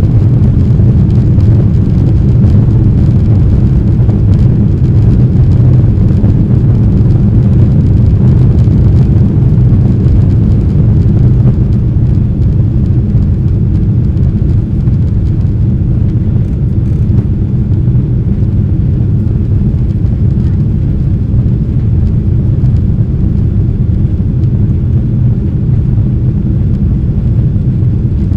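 Boeing 767-300's GE CF6 turbofan engines at takeoff power, heard from inside the cabin: a loud, steady, deep rumble that eases slightly about halfway through.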